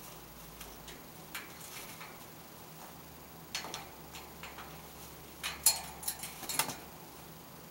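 Male Eclectus parrot moving about on top of its metal wire cage: scattered sharp clicks and taps of claws and beak on the bars, sparse at first, then a busier cluster of louder clicks about five and a half to nearly seven seconds in.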